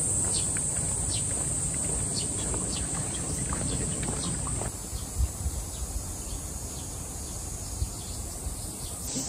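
Insects buzzing in a steady high-pitched drone, with a scattering of short, falling bird chirps in the first half and a low rumble underneath. The drone shifts slightly about halfway through.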